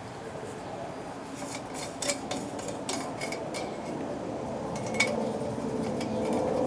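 Light metallic clinks and taps, the sharpest about two and five seconds in, over a steady low hum that grows louder near the end.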